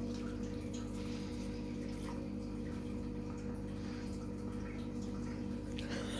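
A steady low hum, several constant tones together, with faint scattered clicks and rustles.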